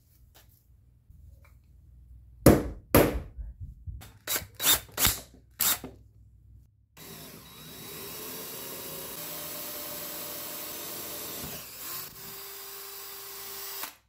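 A run of sharp knocks a few seconds in, then a cordless drill boring a hole through a G-10 fiberglass laminate disc: it runs at steady speed, dips briefly near the end, then carries on with one steady tone.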